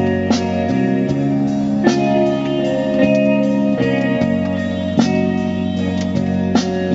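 Instrumental break of a song: guitar playing sustained chords with plucked notes, no singing.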